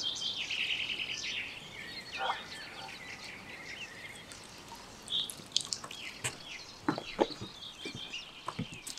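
Birds singing and chirping, busiest in the first two seconds, then thinning out. From about five seconds in, scattered sharp clicks and knocks come through, louder than the birdsong.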